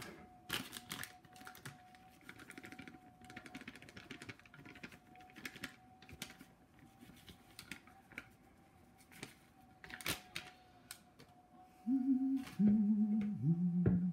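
Kitchen handling noises: scattered clicks and knocks of utensils and the crinkle of a plastic bag being handled, over a faint steady tone. Near the end a man hums a few low notes.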